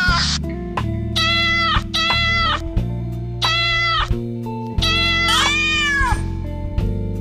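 Domestic cat meowing about four times over background music; the last meow rises and then falls in pitch.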